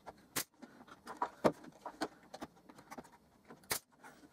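Pneumatic brad nailer firing brad nails through a plywood back panel into the edge of a plywood box: three sharp shots about a second or two apart, the last the loudest, with lighter knocks from handling the box and tool in between.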